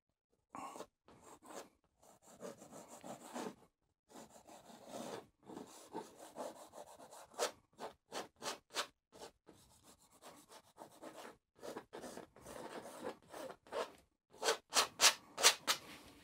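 Palette knife rubbing and scraping oil paint onto a stretched canvas in many short, irregular strokes, with a quicker, louder run of strokes near the end.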